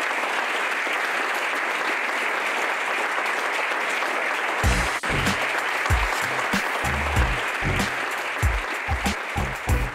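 Audience applauding. About halfway through, music with a run of deep bass notes comes in over the applause.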